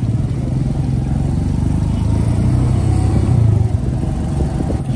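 Small motorcycle engine running steadily while riding through street traffic, with a low hum that swells slightly about three and a half seconds in.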